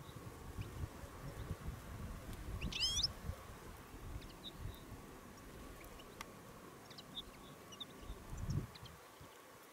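European goldfinch giving one short call of a few quick notes about three seconds in, with a few faint high chips after it. A low rumble runs underneath and swells near the start and again near the end.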